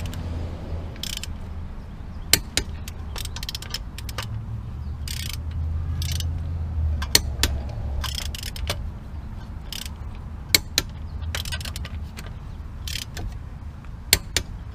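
Torque wrench ratcheting on the wheel bolts, with sharp clicks at four points, each quickly doubled, as each bolt reaches the set torque. A steady low hum runs underneath.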